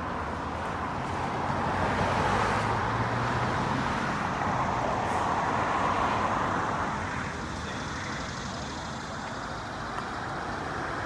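Road traffic going by: the hiss of tyres and engines of passing vehicles, swelling twice, about two seconds in and again about six seconds in.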